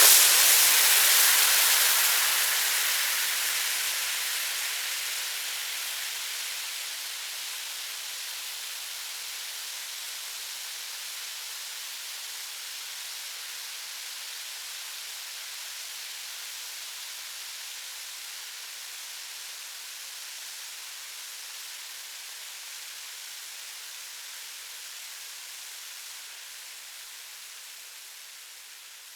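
Frying pan sizzling: a hissing sizzle that starts loud, dies down over the first several seconds to a steady sizzle, and fades near the end.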